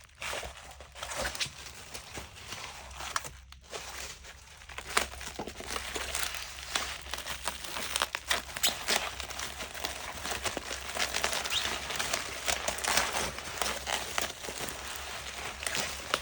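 Crinkling and crackling: a dense run of small rustling clicks, with a short lull early on and growing busier after about five seconds.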